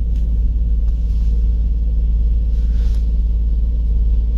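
2007 Nissan Murano's 3.5-litre V6 engine running with a steady low rumble, shortly after starting despite an intermittent crank-no-start fault.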